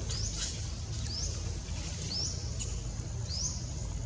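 A small animal's thin, high chirp, rising quickly in pitch and repeated about once a second, over a faint steady high drone and a low rumble.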